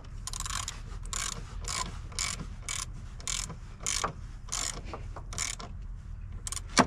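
Small hand ratchet working a car battery terminal clamp nut tight, its pawl clicking in repeated short strokes about twice a second, with one sharp, louder click near the end.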